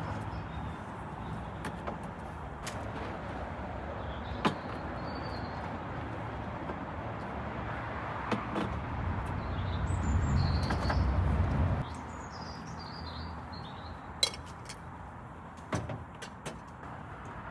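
Outdoor street ambience: a steady rumble of traffic that swells as a vehicle passes and cuts off suddenly near the end, with small birds chirping and a few sharp clicks and knocks.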